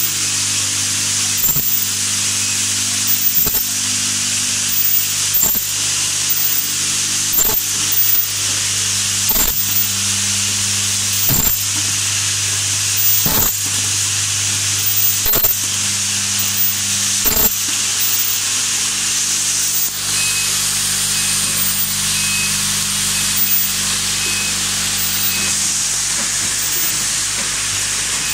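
Automatic fiber optic adapter assembly machinery running, with vibratory bowl feeders humming steadily under a strong hiss. A sharp clack comes about every two seconds, and these clacks stop after about eighteen seconds.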